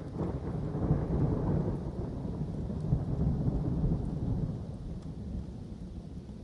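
A roll of thunder: a deep rumble that swells at the start, stays loud for about four seconds, then dies away, over steady rain falling in the woods.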